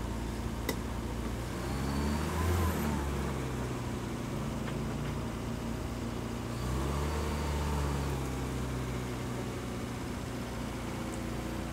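Toyota Corolla KE70's engine idling steadily, revved up and back down twice: once about two seconds in and again around seven seconds.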